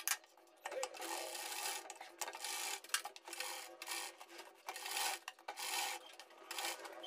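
Domestic sewing machine stitching a neck piece onto a kurti, running in short bursts with brief pauses as the fabric is turned along the curve, the cloth rubbing on the table.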